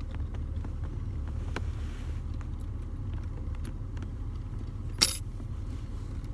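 Small metallic clicks and taps of an Allen wrench working the set screws of an aluminum shift knob, with one sharp, louder click about five seconds in, over a steady low rumble.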